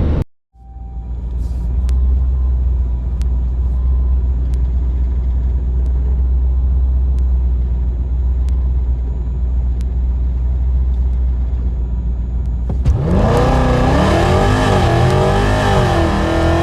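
Supercharged 5.7 Hemi V8 holding a steady deep rumble, then launching hard near the end with the revs climbing, dipping twice at gear changes, on a full-throttle drag strip pass.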